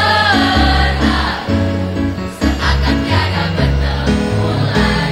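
Mixed school choir of girls and boys singing together over instrumental accompaniment with held bass notes.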